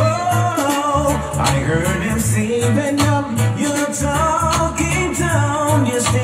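Music with a sung vocal over a steady, bass-heavy beat.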